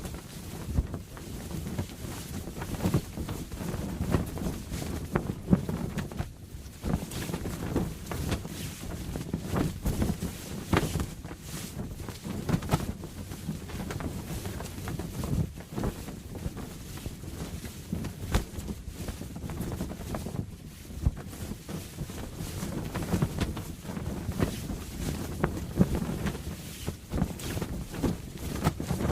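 Canvas sail flapping in the wind, with irregular sharp snaps of the cloth over steady low wind noise.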